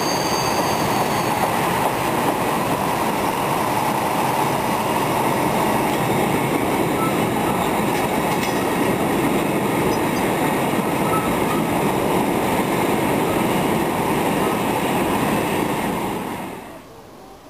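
Freight train of covered sliding-wall wagons rolling past with a steady, loud rumble of wheels on rail, with a faint high wheel squeal that fades out about a second in. The sound drops away sharply near the end as the last wagon passes.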